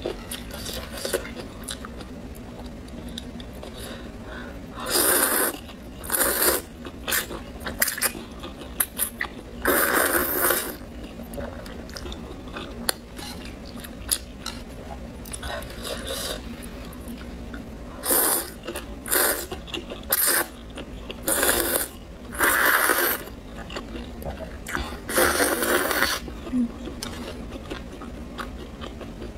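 Close-miked eating of noodles in broth: about eight loud slurps of half a second to a second each, with quieter chewing and small clicks between them.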